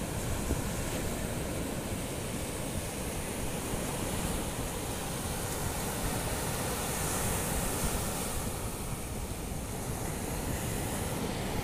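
Sea surf: small waves breaking and washing up a sandy beach in a steady rush, swelling briefly about seven seconds in, with wind buffeting the microphone.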